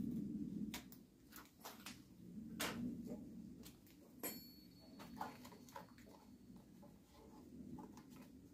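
Light clicks and scrapes of a small sheet-metal patch being handled and fitted into a cut-out in a rusty car body panel, with one metallic clink about four seconds in that rings briefly, over a low steady hum.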